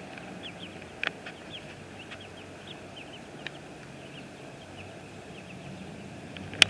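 Young chicks, about a week and a half old, peeping: many short, high cheeps scattered throughout, with a sharp click about a second in and another near the end.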